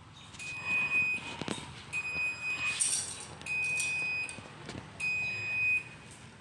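LiftMaster 87504-267 garage door opener beeping its warning tone: four high, steady beeps about a second and a half apart, with a couple of short knocks between them.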